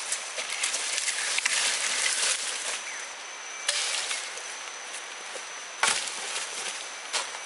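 Dead wood being struck or broken: a few sharp knocks at uneven spacing, the loudest a little after the middle, over a steady high forest hiss.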